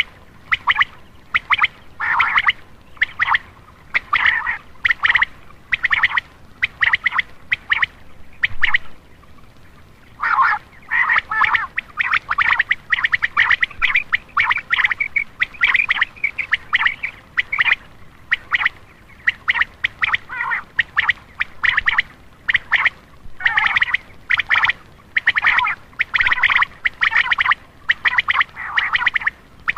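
Common quail calling: rapid runs of short notes repeated over and over, with a break of about a second and a half about nine seconds in. A quail call of the kind played to attract male quail.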